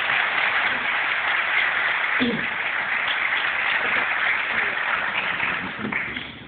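Congregation applauding, a dense patter of many hands that dies away about six seconds in.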